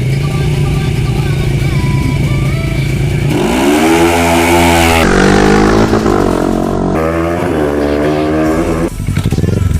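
Kawasaki ER-6's parallel-twin engine running steadily, then about three seconds in pulling away, its pitch climbing and dropping back several times as it shifts up through the gears.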